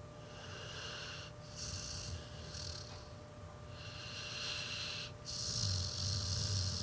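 Sleeping pit bull snoring: four slow, hissing breaths about a second and a half apart. The last is the loudest and carries a low rumble.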